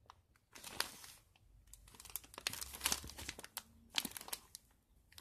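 Bandage packaging crinkling and rustling as it is handled, in irregular bursts with short quiet gaps.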